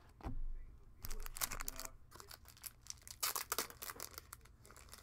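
Plastic trading-card pack wrappers crinkling and tearing in two flurries of short rustles, after a dull thump just after the start.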